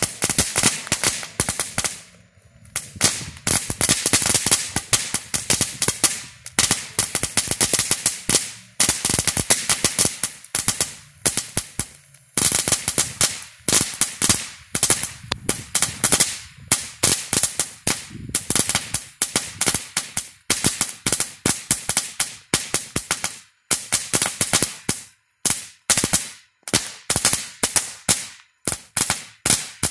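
Dominator Crazy Cracklers fireworks crackling: dense, rapid runs of sharp pops with short breaks, growing more broken up in the last several seconds.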